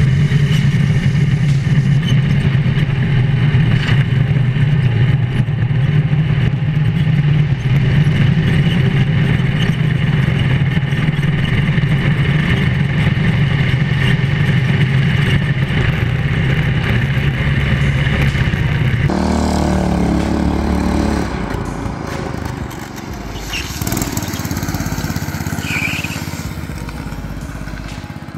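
Drift kart's small engine running hard at a steady pitch, heard close up from onboard. About two-thirds of the way through, the sound changes abruptly to the kart heard from the roadside, quieter and more distant.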